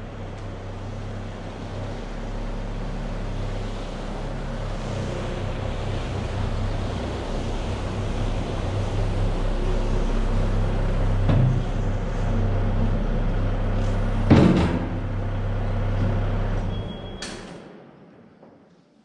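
Vehicle cabin noise while driving: a steady low engine hum under road and tyre noise, slowly swelling, with a single knock about 14 seconds in, fading out near the end.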